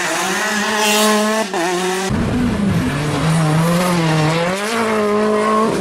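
Rally car engine at full throttle, recorded onboard. The revs climb, then drop sharply with an upshift about one and a half seconds in. After an abrupt change, a car's engine revs rise and fall through the corners.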